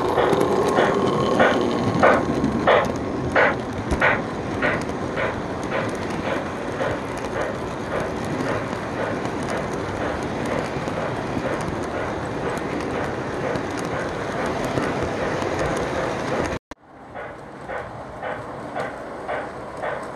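Lionel Reading T1 4-8-4 O-gauge model steam locomotive and its train running on three-rail track: a steady rolling rumble with a regular beat of about one and a half a second, clearest as the engine passes close. The sound drops out briefly near the end and comes back quieter.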